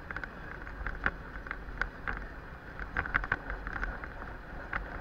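Vehicle driving, heard from inside the cab: a steady low road rumble with many irregular light rattles and clicks.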